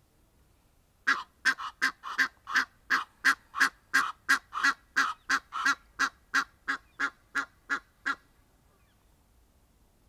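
Egyptian goose honking: a rapid run of about twenty harsh honks, some three a second, starting about a second in and stopping near the end.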